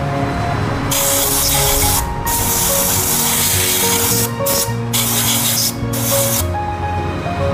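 Compressed-air blow gun hissing in blasts of one to two seconds with short breaks, blowing out the bore of a gear pump's casing; the air stops near the end.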